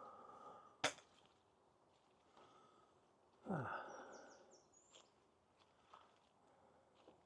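Faint woodland ambience: a sharp click about a second in, a short sound falling in pitch midway, and a few faint high bird chirps.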